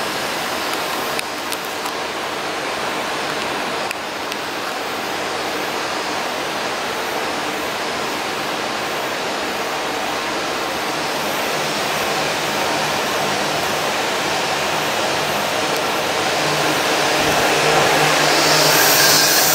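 Steady rushing noise of running water in a crocodilian's pool, growing slowly louder and brighter toward the end.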